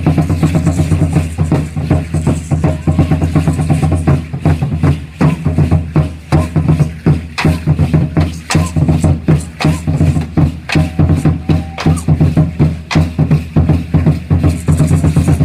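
Aztec ceremonial dance drumming: a large drum beaten in a fast, steady rhythm, with sharp clattering percussion strokes on top.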